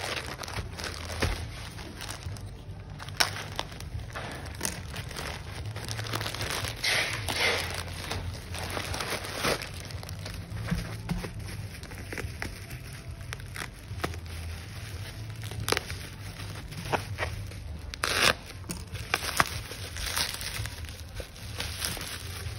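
A plastic courier mailer bag and bubble wrap being handled and crinkled by hand: irregular rustling with sharp crackles, over a low steady hum.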